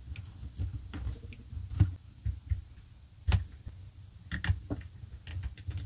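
Small clicks and taps of hard 3D-printed resin pen parts being handled, a tight-fitting part inside the pen body worked up and down with a thin tool, with one sharper click a little past halfway. Low rubbing and handling noise runs underneath.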